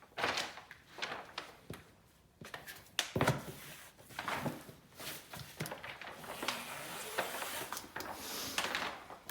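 Rustling of grasscloth wallpaper and tape being handled and peeled off the wall after a double cut, with scattered light clicks and knocks. A longer stretch of rustling comes about six seconds in.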